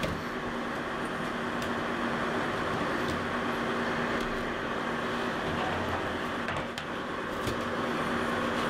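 WMF Küchenminis Snack to Go food dehydrator running: its fan blows with a steady airy hum. A few light clicks come from apple slices and the plastic trays being handled.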